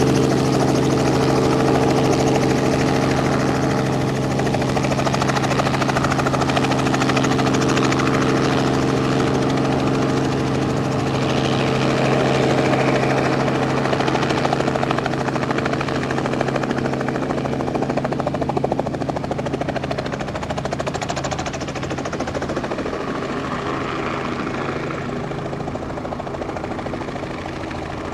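Robinson R44 II helicopter hovering and hover-taxiing just above the ground: steady rotor beat over its six-cylinder Lycoming piston engine, easing gradually quieter.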